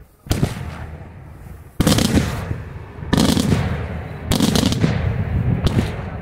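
Daytime aerial fireworks going off: about five loud shell bursts in quick succession, each followed by a rumbling echo, with rapid crackling after some of them.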